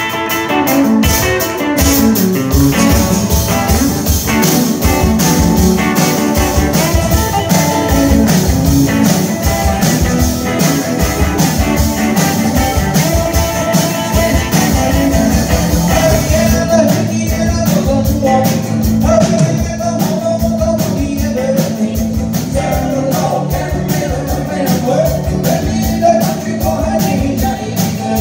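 Live rock and roll band playing: acoustic and electric guitars over a steady drum beat, with singing.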